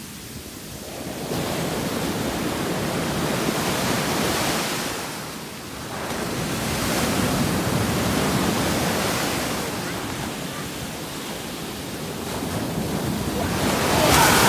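Ocean surf: waves breaking and washing up the sand in slow surges a few seconds apart. The loudest is a wave crashing and splashing against people standing in it near the end.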